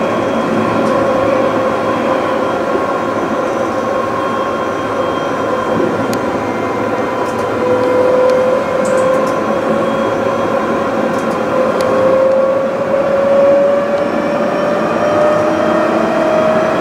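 Electric tram running, heard from inside the front cab: steady rolling rumble of wheels on rails with a motor whine, one tone of which rises slowly in pitch over the second half.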